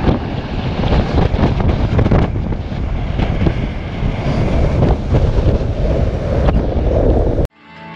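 Strong wind blowing across the microphone on a ship's open deck, a loud rushing rumble. It cuts off abruptly near the end and music starts quietly.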